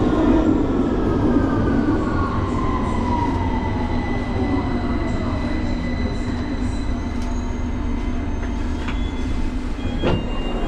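Victoria line Underground train (2009 Stock) slowing into a station, heard from inside the carriage: its traction motors' whine falls steadily in pitch over the first several seconds above the rumble of the car. A single knock about ten seconds in as it comes to a stop.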